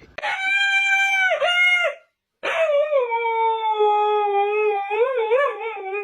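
A dog howling: one long, steady howl, then after a brief break a second long howl that slides down in pitch and wavers near the end.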